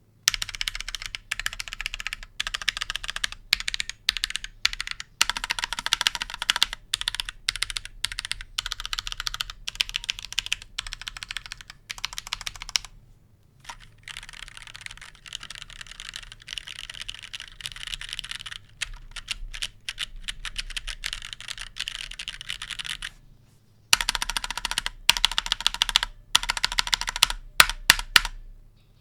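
Typing on a Kemove K68SE mechanical keyboard: fast, continuous key clacks in runs, with short pauses about 13 and 23 seconds in. The typing is softer through the middle stretch and louder again near the end.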